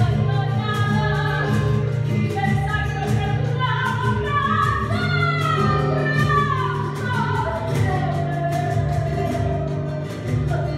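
Live tango song: a singer's voice carrying a melody that rises and falls, over acoustic guitar accompaniment.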